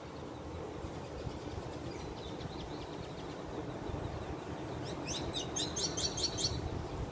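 A bird chirping: a quick run of about eight sharp, high chirps about five seconds in, over a steady low outdoor rumble.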